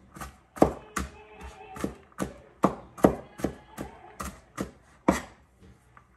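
Chef's knife mincing garlic on a cutting board: even knocks of the blade on the board, about two or three a second, stopping about five seconds in.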